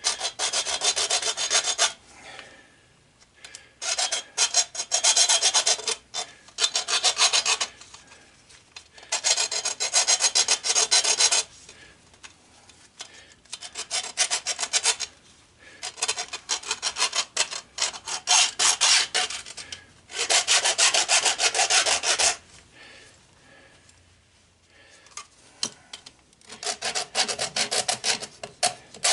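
Hacksaw cutting through copper tubing in runs of quick back-and-forth strokes, each run lasting a second or a few, with short pauses between.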